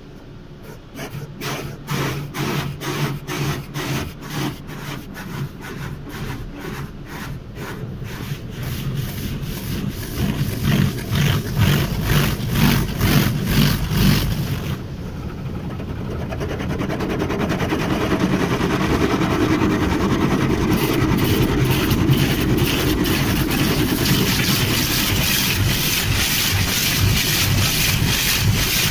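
Automatic car wash heard from inside the car: rotating brush strips slap rhythmically against the body, a few strikes a second, for the first half. About halfway through this gives way to a steadier, louder rush of water jets spraying over the windshield and roof.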